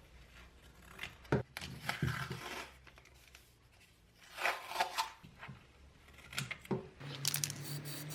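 Scattered short scrapes, clicks and knocks of hand work on the workpiece. Near the end a machine starts running, with a steady low hum and a fast, regular ticking.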